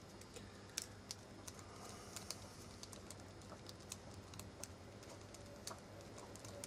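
Faint, irregular small clicks and ticks of metal on metal from a Cold Steel Ti-Lite folding knife and a precision screwdriver being handled while its small screws are tightened.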